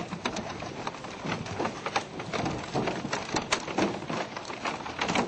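Many fish leaping out of the river and splashing back, some striking the boat: a dense, irregular patter of splashes and knocks.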